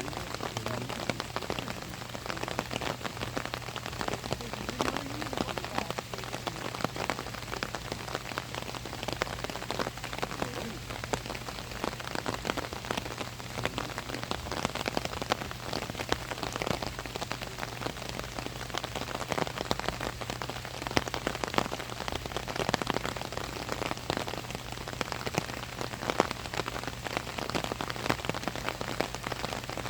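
Steady rain falling on an umbrella overhead, with many separate drops hitting the canopy as sharp ticks over a constant hiss. A low steady hum lies underneath.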